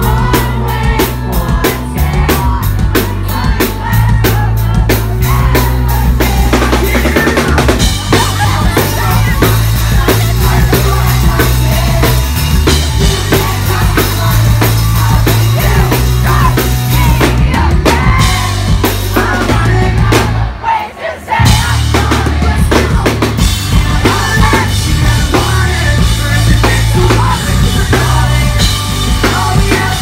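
Pop-punk band playing live, with loud drum kit, bass drum and snare over a full band. About twenty seconds in, the band stops dead for about a second, then crashes back in.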